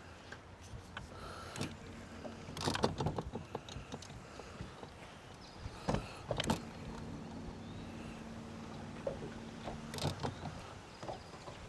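Knocks and clatter of gear being handled in a bass boat, then an electric trolling motor humming steadily for about three seconds from around the middle.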